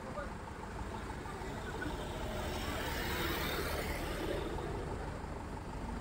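A vehicle passing close by on the road, its engine and tyre noise swelling to a peak about halfway through and then easing off, over a low steady engine hum.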